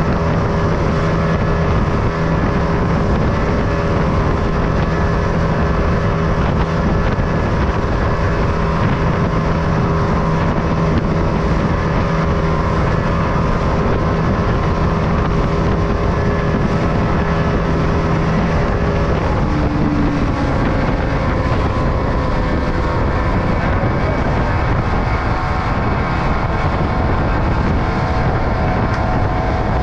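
Small fishing boat's engine running steadily under way through choppy water, over the rush of water and spray and wind on the microphone. The engine's note shifts about two-thirds of the way through.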